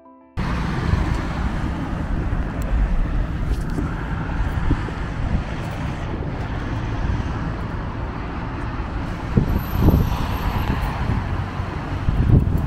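Street ambience with steady traffic noise, starting abruptly about half a second in and holding steady, with a couple of brief louder swells near the end.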